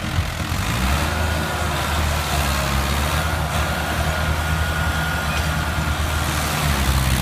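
Mahindra Arjun 605 tractor's diesel engine running steadily, with a faint high whistle over the low engine note.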